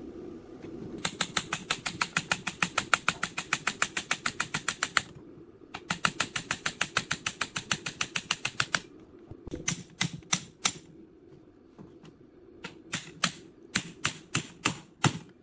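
A hammer rapidly tapping the steel motor housing of an old electric fan, knocking the rusted end cover loose to take the motor apart. Two quick runs of sharp metallic taps at about eight a second, then slower, separate strikes.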